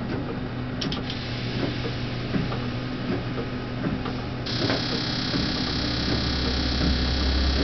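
Cab of a class 162 electric locomotive under way: running noise with a steady electrical hum and a few sharp ticks. About halfway through, a multi-tone electrical whine starts suddenly and a deep hum swells beneath it, the sound of the traction equipment taking power.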